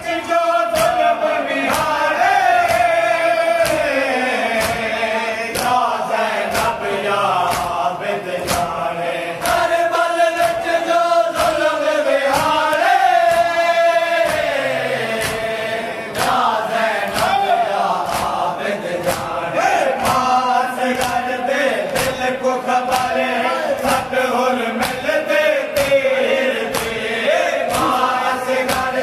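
A crowd of men chanting a Muharram noha (lament) in unison, with steady, evenly spaced hand-slaps on their chests (matam) keeping the beat.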